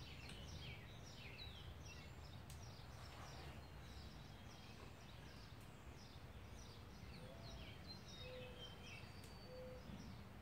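Near silence: faint birds chirping, a run of short falling chirps, over a low steady background hum.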